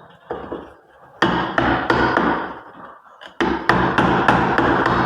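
Hammer blows on a wooden door, about three sharp strikes a second in two runs with a short pause between, each with a brief ring.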